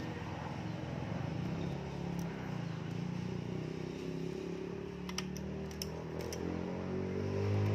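A steady low motor hum that swells near the end, with a few light sharp clicks about five to six seconds in as the sawn-off metal broom-handle end with its plastic threaded piece is handled.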